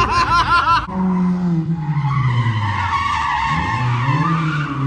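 Drift car's engine revving hard with tyre squeal as the car slides. The first second has quick rise-and-fall revs. After an abrupt change, a steadier engine note dips and then levels off under the tyre noise.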